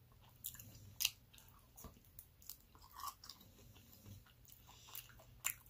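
A person chewing a mouthful of food, faint, with scattered short mouth clicks and smacks, the sharpest about a second in and again near the end.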